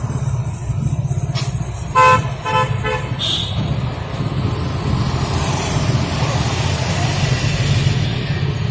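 Roadside traffic: a vehicle horn gives three short toots about two seconds in, the first the loudest, over a steady low engine rumble, and a vehicle passes during the second half.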